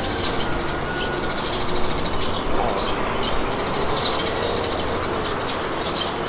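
Steady wind blowing, with birds chirping and trilling repeatedly over it.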